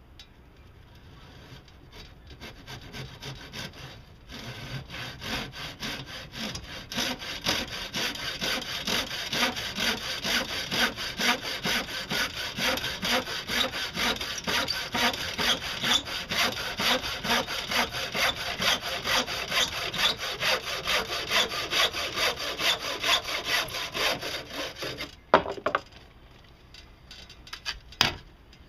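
Hand saw cutting through wood with steady back-and-forth strokes, about two a second. The strokes start softly and grow louder, then stop, followed by a couple of sharp knocks.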